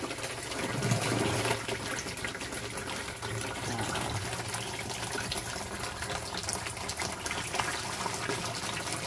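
A steady stream of pumped water gushing from a hose into a part-filled plastic drum, filling it.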